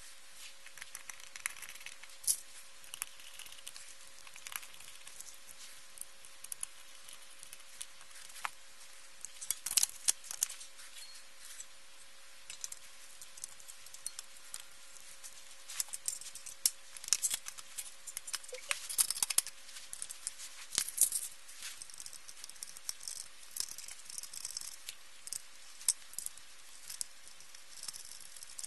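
An LCD monitor being reassembled by hand: scattered clicks, taps and light rattles of the sheet-metal shield and plastic parts being handled and fitted, busiest about a third of the way in and again past the middle, over a faint steady hum.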